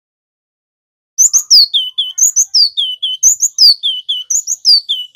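Male cinereous tit (Javan glatik batu) singing its fast rolling song: short high notes, a note sliding downward, then two lower notes, the phrase repeated about once a second. The song starts just over a second in, after silence.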